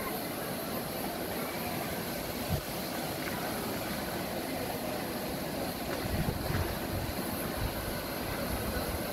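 Steady rushing noise of a river's flowing water, with wind buffeting the microphone now and then, most around six to seven seconds in.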